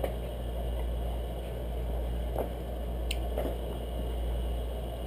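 Steady low background hum, with a few faint clicks and taps of small objects being handled.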